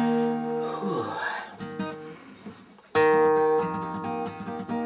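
Steel-string acoustic guitar: a chord strummed and left to ring, then about three seconds in a second chord struck, followed by picked notes in an even, repeating pattern, the opening of a song being played through.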